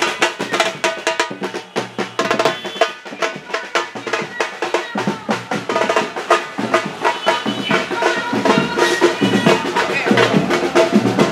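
Music driven by fast, dense drumming on snare and bass drum, with some pitched sounds over the beat.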